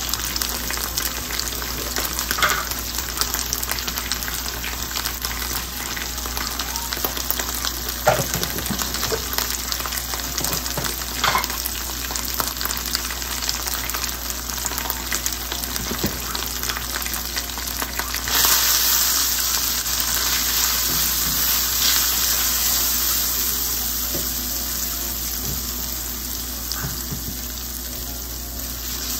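Chopped onions and ground spices sizzling in hot oil in a nonstick wok, a steady frying hiss with a few sharp clicks of a spoon against the pan. About two-thirds of the way through the sizzle turns louder and brighter, and near the end a wooden spatula stirs the mixture.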